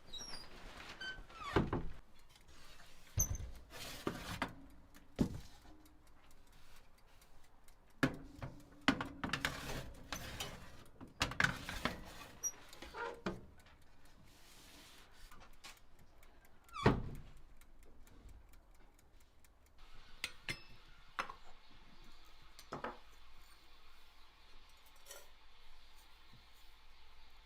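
Scattered knocks and thuds at irregular intervals, the loudest about 17 seconds in, with a faint steady hiss in the last third.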